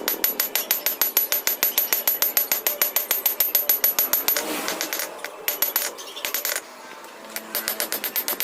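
Rapid, evenly spaced hammer blows on steel, about seven a second with a metallic ring, from forging a Damascus billet. The strikes pause briefly about halfway through, then thin out and stop near the end.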